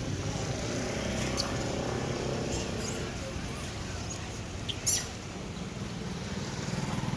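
A few short, high-pitched animal squeaks scattered through, the loudest about five seconds in, over a steady low background rumble.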